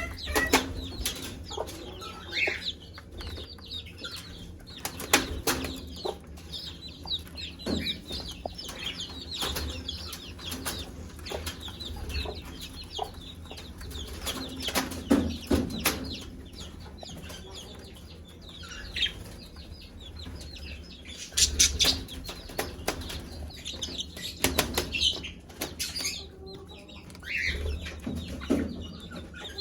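Mother hen clucking among her chicks, which peep in short high chirps, over frequent sharp taps and rustling. The hen is calling her chicks to food.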